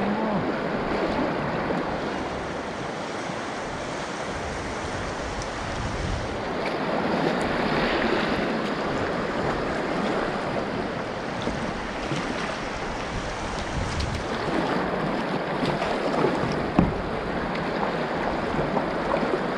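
River water rushing steadily over shallow riffles around kayaks, with wind on the microphone and one short sharp knock about three seconds before the end.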